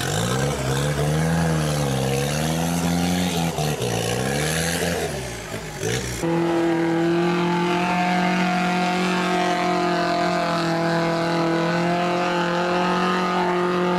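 Off-road 4x4 diesel engine revving up and down again and again as the truck churns through deep mud. About six seconds in, the sound cuts abruptly to an engine held at a steady high pitch while another 4x4 pushes through the mud.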